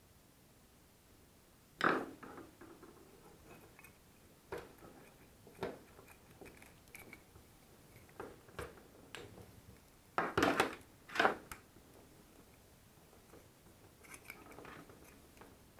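Scattered small clicks, snips and scrapes of hand work with tools and small parts, while wiring an electrical plug. The loudest are a sharp clack about two seconds in and two close clatters about ten and eleven seconds in.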